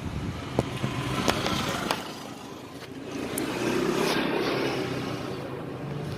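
A vehicle engine running steadily, with a few sharp clicks and a swell of louder engine noise about halfway through.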